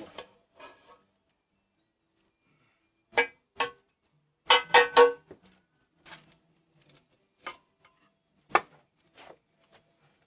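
Stainless steel pans, lids and cooking utensils clanking together, in a handful of short clanks with brief metallic ringing, the busiest cluster about four and a half to five seconds in.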